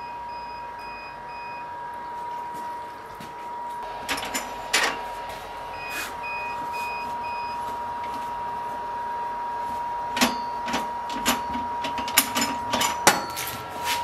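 Sharp metallic clinks and knocks from tongs and a steel knife blade being handled at a heat-treating oven, coming in clusters, most of them in the last few seconds. Twice, a run of four short electronic beeps, over a steady high whine.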